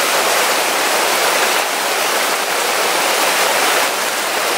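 Torrential tropical downpour on rainforest foliage and a tarp shelter, with water running off the tarp edge: a steady, dense rush of heavy rain.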